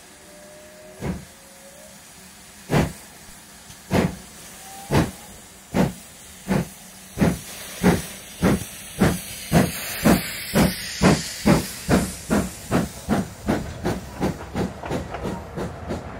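Steam locomotive pulling away, its exhaust chuffing over a hiss of steam. The chuffs start slow, more than a second apart, and speed up steadily to about three a second as the train gathers speed.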